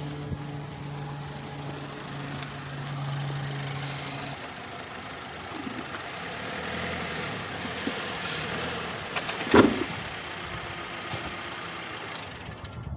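2009 Chevy Cobalt's engine idling with a steady hum that cuts off about four seconds in. Later a single loud thump.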